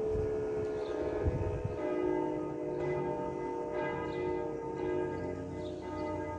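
A steady siren tone dies out about two seconds in. Bells then ring, with a fresh stroke well under a second apart over a sustained hum of their tones.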